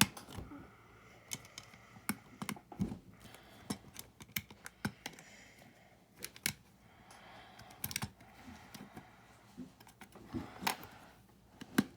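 Off-brand LEGO-style plastic bricks clicking and tapping as small tiles are handled and pressed onto plates: a steady run of irregular sharp clicks.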